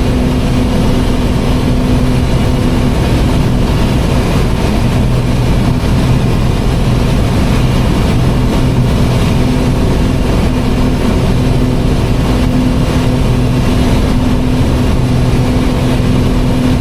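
Twin-engine Piper's piston engines and propellers droning steadily in cruise, heard inside the cockpit, with a low hum that swells and fades every few seconds.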